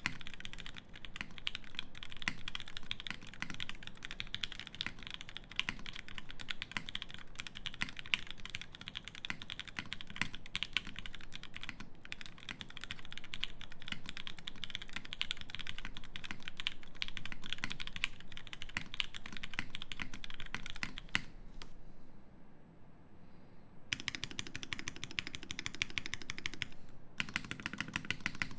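Fast continuous typing on a Merisi Sessantacinque mechanical keyboard: lubed Nixie switches in an aluminium plate, with GMK keycaps, giving a dense run of keystroke clacks. The typing pauses briefly a little past two-thirds of the way through, then resumes with a deeper, fuller sound.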